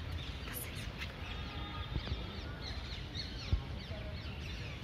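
Many birds chirping and calling at once, short quick notes overlapping, over a steady low rumble, with one soft knock about three and a half seconds in.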